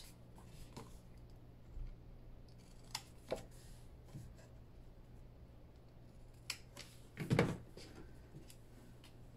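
Scissors snipping the corners off a piece of scored cardstock to mitre them: a few short, separate snips. About seven seconds in comes a louder thump as the scissors are set down on the cutting mat.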